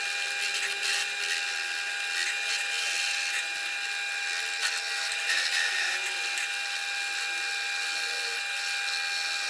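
Drill press spinning a small abrasive disc on a bolt, grinding the edge of a steel flat bar held against it: a steady high motor whine over a grinding hiss.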